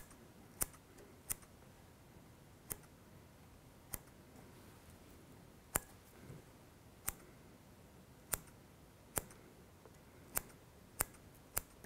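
Fly-tying scissors snipping away excess bucktail fibers: about a dozen short, sharp snips, spaced irregularly.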